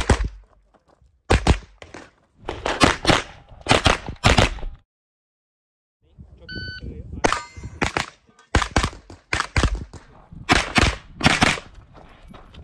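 Rapid 9mm pistol-caliber carbine shots in quick clusters, then about a second of silence around five seconds in. An electronic shot timer's start beep follows, and then another fast string of carbine shots.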